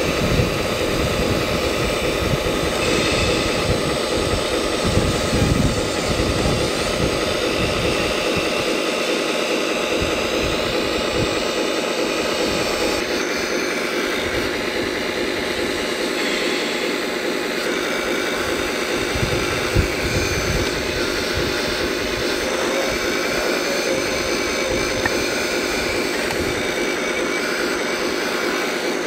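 Electric-driven hydraulic pump of a 1/12-scale Earth Digger 4200XL RC hydraulic excavator whining steadily as the boom and bucket are worked. Low gusts of wind rumble on the microphone in the first several seconds.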